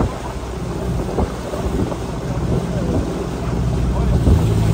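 Motorboat engine running steadily with a low hum, under heavy wind buffeting the microphone as the boat moves across the sea.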